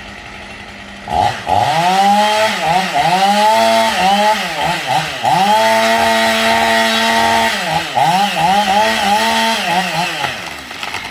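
A small engine revved hard over and over: it starts about a second in, its pitch dips and climbs again in quick swoops, holds high and steady for a couple of seconds midway, then dies away near the end.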